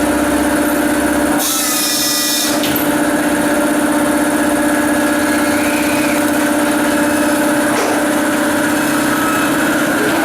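CNC corner cleaning machine for welded uPVC window frames running, its motors giving a steady whine, with a loud burst of harsh cutting noise about a second and a half in that lasts about a second.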